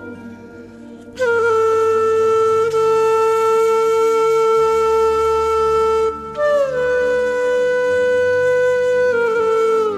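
Background music: a solo wind instrument playing two long held notes, the second opening with a short downward slide about halfway through.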